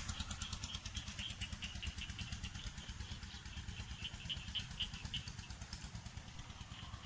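A small engine running steadily at idle, with a fast even beat, and faint high chirping over it.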